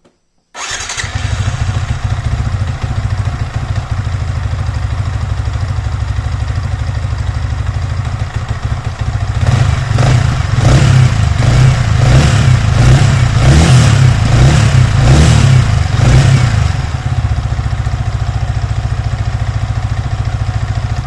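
Yamaha R15 V3's single-cylinder engine starting about half a second in and idling. From around the middle it is blipped through a string of quick revs, then settles back to idle and is shut off at the end, run so that a clutch housing noise can be checked.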